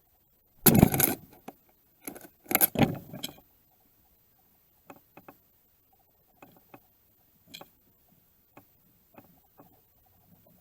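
Clattering at a bowl bird feeder, likely seed and a bird's feet knocking about in the bowl: two loud bursts, the first about a second in and the second a little after two seconds, then scattered faint taps and pecks.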